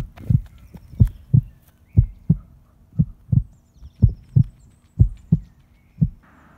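Heartbeat sound effect: paired low thumps, lub-dub, about once a second over a faint steady hum.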